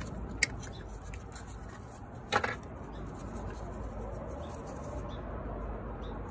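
Rubber vacuum hose being pushed onto a brass barbed fitting of an electronic boost control solenoid by gloved hands: small handling noises, with a sharp click about half a second in and a short, louder scrape about two and a half seconds in, over a low steady rumble.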